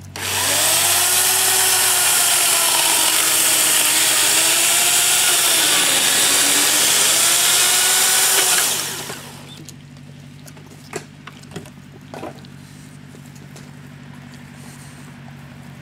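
Buzzsaw cutting wood for about nine seconds, its pitch dipping and wavering under load, then winding down and stopping. After it a steady low hum continues, with a few sharp snaps.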